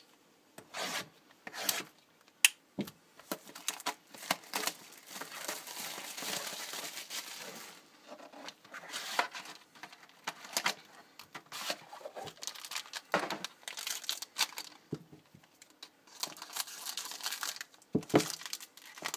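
Trading card pack wrapper being torn open and crinkled by hand: sharp tearing crackles and stretches of rustling foil plastic.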